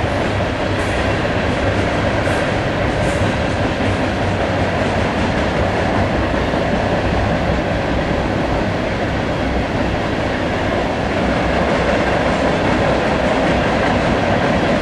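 Freight cars of a long freight train, tank cars among them, rolling past: a steady, even noise of steel wheels on the rails.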